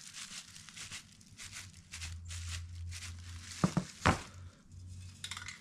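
Crumpled plastic bag crinkling and rustling in quick dabs as a hand presses dish soap onto a wet-painted rifle magazine, followed by two louder knocks about four seconds in.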